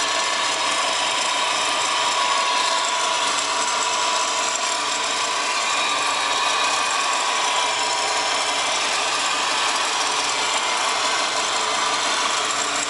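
Subaru WRX GDB's turbocharged boxer-four engine idling, with a steady rattle and a thin whine from the engine bay: the noise of a failing A/C idler pulley.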